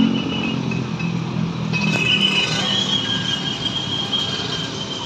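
Motor vehicles running on the street, a steady engine hum, with a thin steady high tone coming in about two seconds in.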